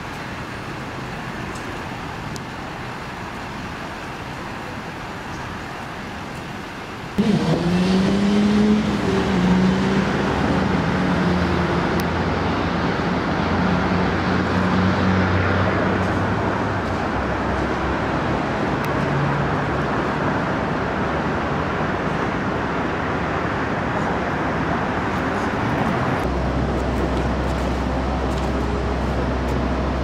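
Steady city street traffic noise. About seven seconds in it jumps louder, and a motor vehicle's engine is heard rising in pitch, then steadying. Near the end a steady low hum comes in.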